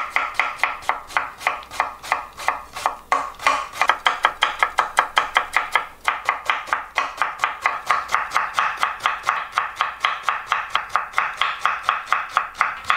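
Kitchen knife chopping a round squash into fine julienne strips on a wooden cutting board: quick, even strokes about five a second, with a brief pause about six seconds in.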